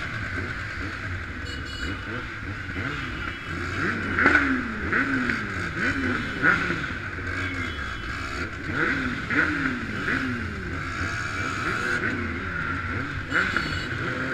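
Scooter and motorcycle engines running at low speed in a slow procession, with repeated throttle blips whose pitch falls away each time. There is a steady higher drone underneath.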